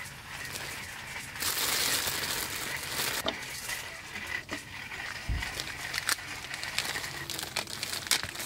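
Plastic bread bag crinkling and rustling as slices of bread are taken out and laid in a hot-sandwich maker, with scattered light clicks and taps of handling. The rustle is thickest for a second or two early on.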